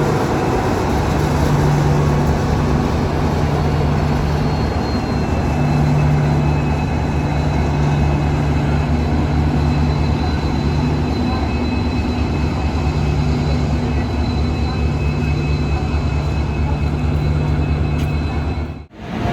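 A railway locomotive running steadily with a low engine hum and a faint high whine over it. The sound cuts out briefly just before the end.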